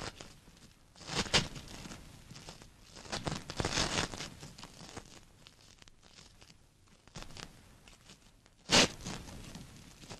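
A fresh banana leaf being torn by hand and crunched, several crisp rips with rustling between, the loudest near the end.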